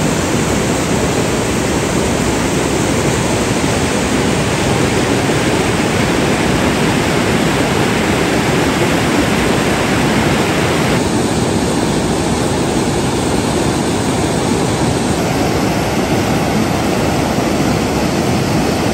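Steady rushing of fast-flowing mountain stream water. The tone changes a little about eleven and fifteen seconds in.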